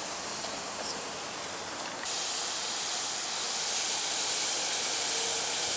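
Steady fizzing hiss of the toy's fizzy-lava material dissolving in water, getting louder about two seconds in.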